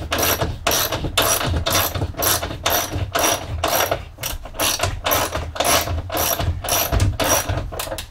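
Ratchet wrench clicking through quick repeated strokes, about two or three clicks a second, turning a fastener on the steel bars of a wall-mount sink carrier. The clicking stops at the very end.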